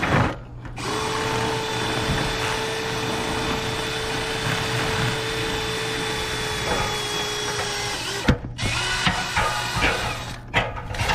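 Power drill spinning a rotary dryer-vent cleaning brush inside the duct at an elbow, running at a steady pitch. Around eight seconds in it stops, knocks, runs again more briefly and stops, as the brush binds on itself.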